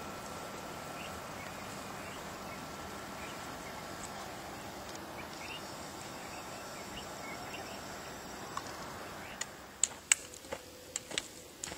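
Steady dusk outdoor ambience with a faint insect drone and a few short bird chirps. From about nine seconds in come sharp, uneven clicks of trekking-pole tips and footsteps on a gravel path.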